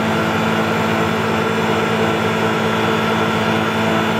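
Tormach PCNC 1100 CNC mill face milling 6061 aluminum dry: the spindle and face mill run steadily in a light finishing cut, a constant hum of several steady pitches over a hiss.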